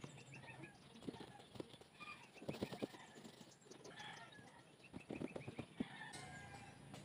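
Faint quick rubbing strokes of a cloth wiping a truck cab's window, coming in two short bursts about two and a half seconds apart, with small birds chirping faintly.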